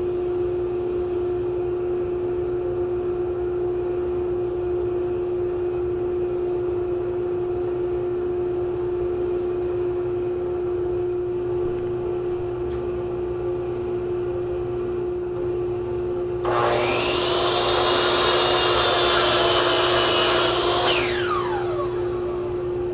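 Vacuum dust-collection motor running steadily with a constant whine. About three-quarters of the way in, a much louder high-pitched running sound starts abruptly, and some four seconds later it winds down with a falling pitch while the vacuum keeps running.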